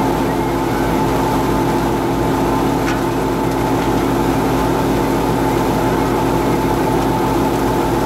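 Tractor-driven Al-Shehbaz wheat thresher running steadily as wheat straw is fed in by hand: a constant, even mechanical drone from the tractor engine and the spinning threshing drum, with no change in speed.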